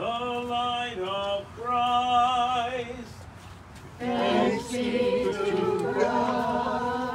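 One voice chants a short sung phrase on held notes, and after a pause of about a second a group of voices chants a reply: the call and response sung during an Easter Vigil procession.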